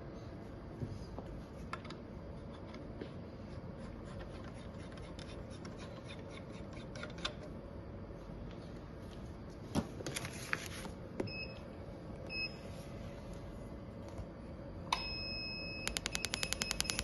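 Laser treatment unit running with a steady hum and scattered clicks. Two short beeps sound about two-thirds of the way in, then a held tone, and near the end a rapid, even string of beeps as the laser fires in pulses.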